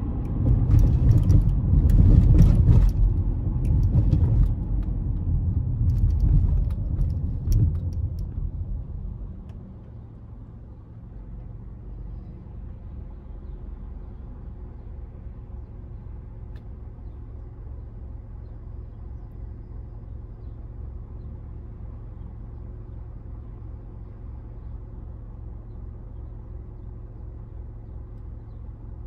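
Honda CR-V driving, heard inside the cabin: road and engine rumble with a few knocks, dropping off about nine seconds in to a steady low hum as the car slows to a stop and idles.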